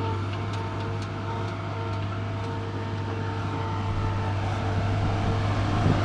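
Skid loader engine running steadily with a low hum, growing louder toward the end.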